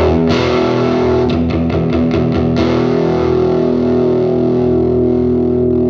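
Electric guitar played through a distorted tube amplifier, the reclaimed 'Sound Projector' conversion: a chord struck hard at the start, a few quick picked notes, then a chord left ringing and sustaining.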